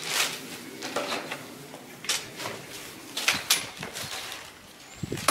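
A handful of short scrapes and rustles: a broom sweeping newspaper litter across asphalt, spaced unevenly, with two strokes close together about three and a half seconds in.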